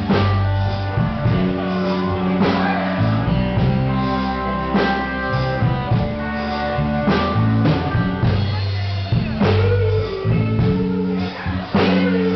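Live band playing a rock song, with a singer, guitar, a steady bass line and drums.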